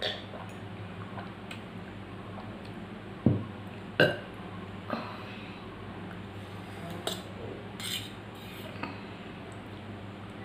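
A woman burping twice in quick succession about three seconds in, the first burp low, the second shorter and sharper, with a few fainter short sounds around them.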